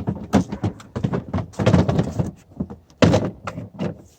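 Hard plastic Milwaukee Packout cases being handled and set onto their mounting cleats: a quick, irregular run of knocks and clunks, with the loudest clunk about three seconds in.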